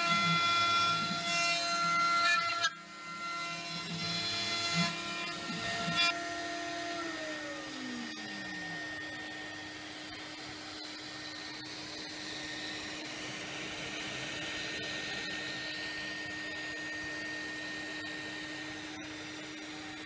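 CNC milling machine running, its spindle and end mill cutting into a wooden block to shape a turbine blade, with several steady whining tones over rough cutting noise. About seven seconds in, some of the tones slide lower and the machine settles into a quieter, steady hum.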